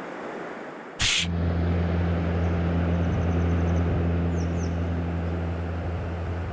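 A sharp click about a second in, then a steady low motor hum over the rush of flowing water, with a few faint high bird chirps in the middle.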